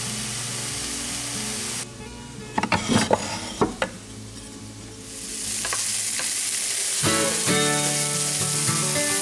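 Meat patties sizzling in a frying pan, with background music. About two seconds in the sizzle cuts off for a few seconds of several sharp knocks, then builds back up as a wooden spatula turns the patties.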